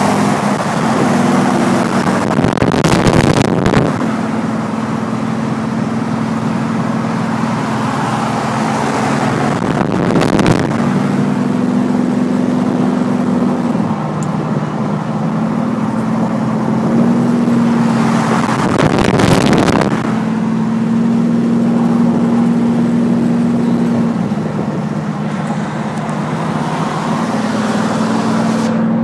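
Pontiac Trans Am's V8 cruising at highway speed, heard from inside the car: a steady drone that steps up and down a little in pitch with the throttle, under road and wind noise. Three times a brief loud rush of wind and road noise sweeps over it.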